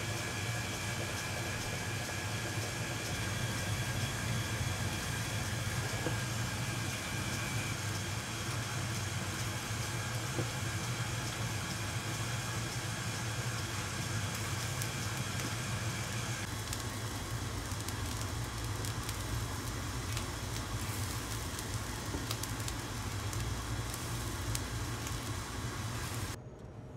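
Steady low hum and hiss of kitchen equipment around a hot dorayaki griddle, with faint light clicks. The sound drops sharply just before the end.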